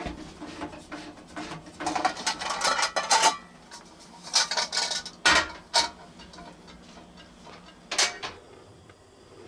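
A metal cooking pot and a portable butane/propane camp stove being handled: a run of clattering knocks and clicks, densest in the first few seconds, with a few more knocks later.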